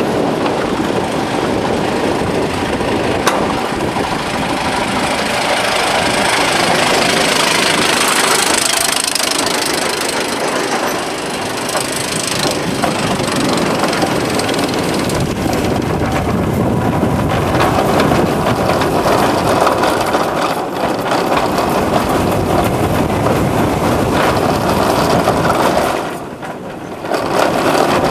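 Intamin inverted roller coaster train running through its course at speed, its wheels rumbling on the steel track, with wind rushing over the on-ride camcorder's microphone. The noise is loud and continuous and dips briefly near the end.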